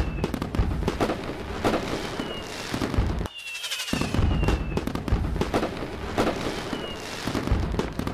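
Fireworks sound effect: dense crackling and popping bursts, with several short whistles that fall in pitch.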